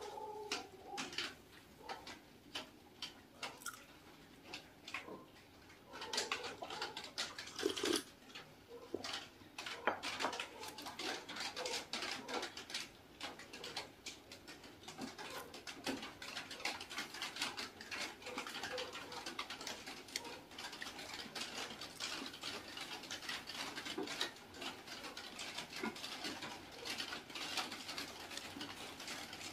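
Eating sounds: a crusty-topped bread bun being torn apart by hand and chewed, giving many small irregular crackles and mouth clicks, sparse at first and denser through the second half, with a louder cluster of crackles several seconds in.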